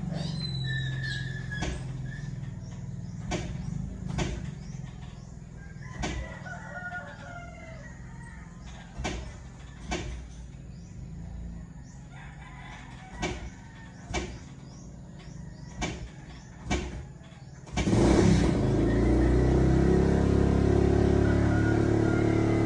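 Roosters crowing in the background, with sharp clicks about once a second. About eighteen seconds in, a much louder, steady low sound starts suddenly and runs on.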